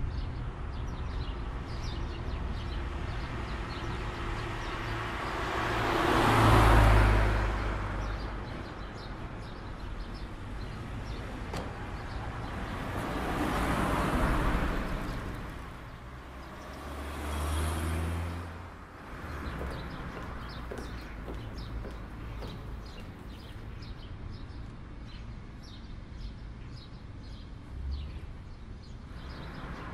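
Car engine idling steadily, with three louder swells of road noise that rise and fade as vehicles drive past.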